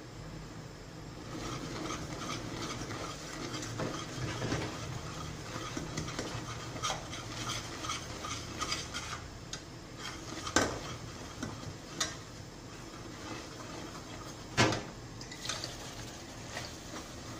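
Metal spoon stirring and scraping in a stainless steel pot, with frequent light clinks. Two sharp, louder knocks of metal on the pot stand out, about ten and fifteen seconds in.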